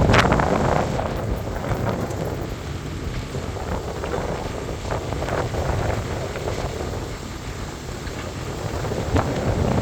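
Wind buffeting the microphone in gusts, with a heavy low rumble that is strongest at the start and picks up again near the end.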